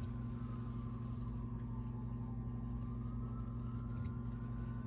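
Steady low mechanical hum, with a faint higher tone that slowly falls and then rises again.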